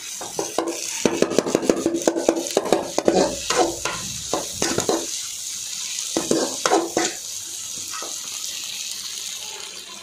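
Metal spatula scraping and clattering against a metal kadai as egg, chicken and vegetables are stir-fried, over a steady sizzle of frying. The strokes come thick and fast for the first few seconds, return briefly about two-thirds of the way in, then give way to the sizzle alone.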